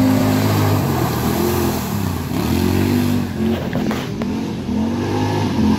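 Side-by-side UTV engine running and revving up and down over and over as it is driven through mud, with a couple of short knocks about four seconds in.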